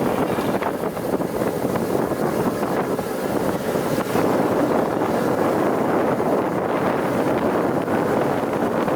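GAZ-66 truck driving, its engine and ride noise a steady rush under wind buffeting the microphone.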